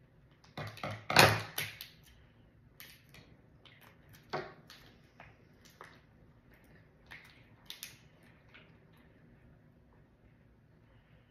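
Knife blade stabbing and scraping at a small plastic slime container, with two loud knocks about a second in, followed by scattered quieter clicks and rustles as the plastic pieces are handled.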